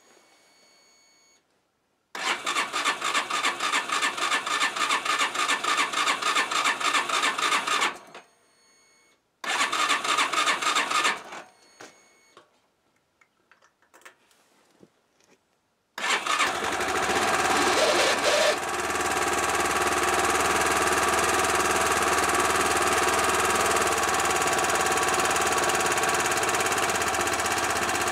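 Yamaha YBR 125 single-cylinder four-stroke engine, freshly rebuilt with new crankshaft bearings and a 150 big-bore kit, cranked over twice on the starter without firing to get the oil circulating. A little past halfway it catches, is revved briefly and settles into a steady idle, with a noise the owner thinks comes from the clutch.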